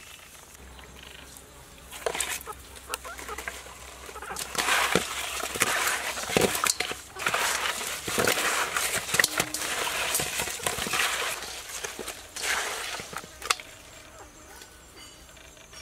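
Hands scrubbing whole raw fish in a stainless steel bowl: wet rubbing and squelching with many small clicks of fish against fish and metal. It starts about two seconds in and eases off near the end.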